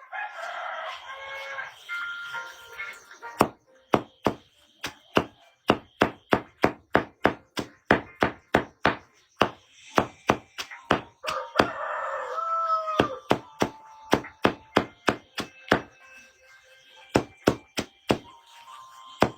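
Rapid, regular chopping strikes, about three a second, with a break of a second or so near the middle before they start again.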